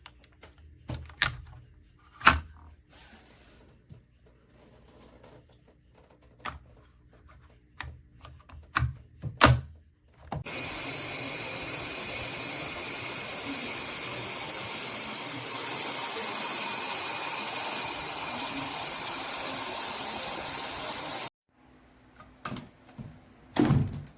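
A few clicks and knocks of handling, then shower water spraying from the dual shower head: a steady, even hiss that switches on abruptly partway through and cuts off suddenly near the end, followed by more knocks.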